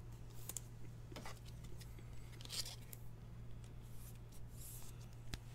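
Faint rustling and scraping of a soft plastic card sleeve as a trading card is slipped into it by hand, over a steady low electrical hum, with a sharp tap right at the end.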